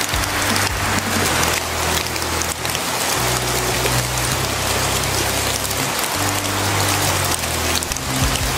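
A steady rain-like hiss over deep, sustained music chords that change about every three seconds.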